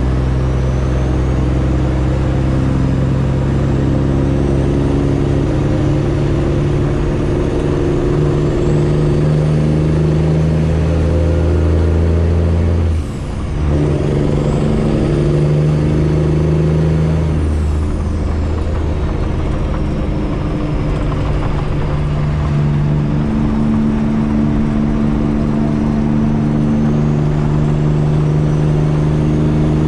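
Freightliner Classic XL semi truck's straight-piped diesel engine running loud and steady. About halfway through, the note drops away for a moment and comes back at a new pitch, and it changes again a few seconds later.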